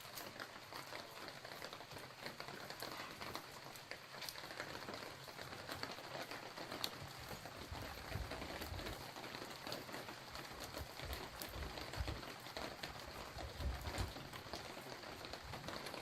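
Rain pattering steadily, a constant hiss with many small drop ticks, with a few low rumbles in the middle stretch.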